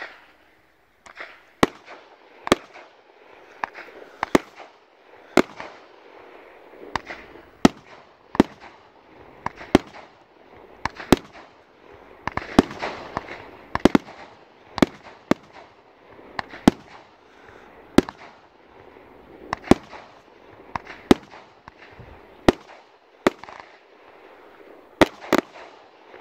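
Category 4 firework cake firing, its shots going off as a run of sharp bangs about once a second, some in quick pairs, with a noisy wash between them.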